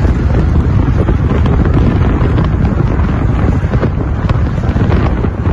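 Heavy wind buffeting on the microphone, with the low rumble of vehicles on the move.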